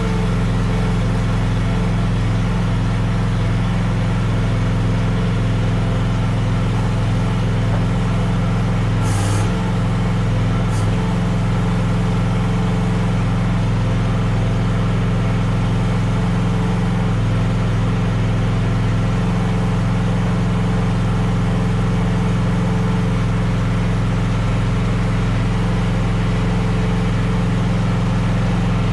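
Petrol engine of a QK16R mini excavator running steadily just after starting. Two short hisses come about nine and eleven seconds in.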